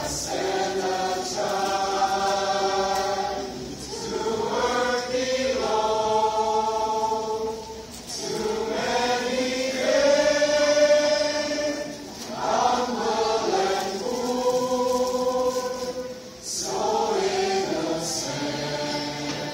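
Mixed choir of men's and women's voices singing a Christmas carol, held notes in phrases of about four seconds with short breaks between them.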